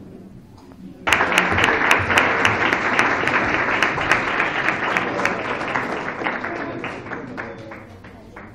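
Audience applauding, starting suddenly about a second in and dying away over the last couple of seconds.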